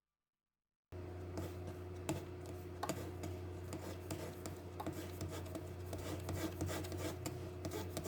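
Faint scratching and light irregular ticking of small metal tools on a phone's circuit board during a CPU repair, over a steady low electrical hum. The sound starts suddenly about a second in.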